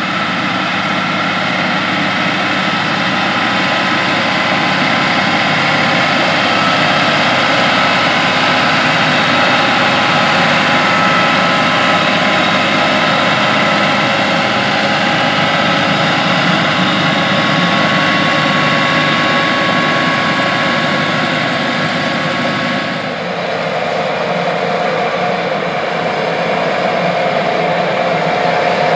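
John Deere 8RX 370 four-track tractor's diesel engine running steadily, with a steady whine over the engine note. A little over twenty seconds in, the sound dips and changes abruptly to a lighter running note.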